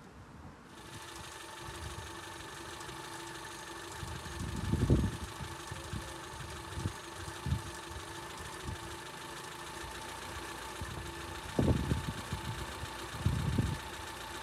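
1983 Triumph Acclaim's twin-carburettor 1.3-litre Honda E-series (EN4) four-cylinder engine idling steadily. A few brief low rumbles sound over it.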